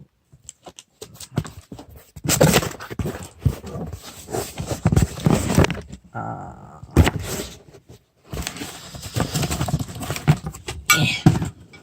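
Cardboard box and plastic packaging being torn open and handled: loud crinkling and rustling with many sharp clicks, in two long spells.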